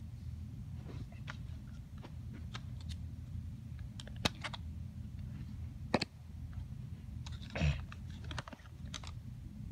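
Plastic CD jewel case clicking and tapping as a disc is pressed and pried off the case's centre hub, with sharper clicks about four and six seconds in and a short scraping rustle near the end, over a steady low hum.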